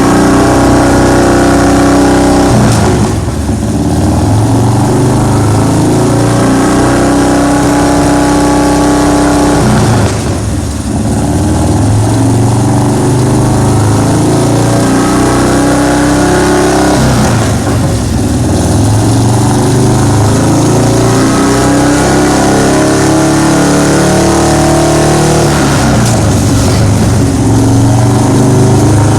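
The 107 cubic inch V-twin engine of a 2002 Big Dog Husky motorcycle running steadily, its note dipping and shifting briefly about every seven or eight seconds.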